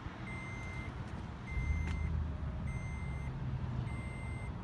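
An electronic warning beeper sounding a steady high beep about every 1.2 seconds, four half-second beeps in a row, over a low steady hum.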